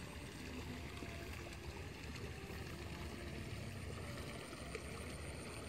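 Steady, faint outdoor ambience of water flowing along a rice-field irrigation ditch, with a low rumble underneath and a few faint short tones.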